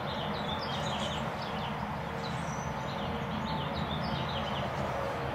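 Small birds chirping again and again over a steady outdoor background hum.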